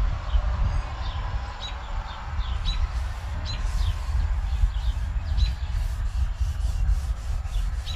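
A folded paper towel gripped in tongs being rubbed across a hot steel griddle top, spreading grease to season it. Birds chirp over and over, and a steady low rumble runs underneath.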